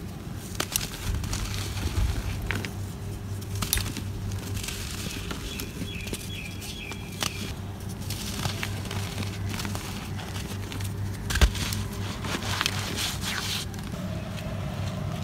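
Hands crumbling and rubbing chunks of dry cement floor: irregular gritty crunching and crackling with scattered sharp snaps as pieces break off, one loudest about three-quarters of the way through, and grit pattering down. A steady low hum runs underneath.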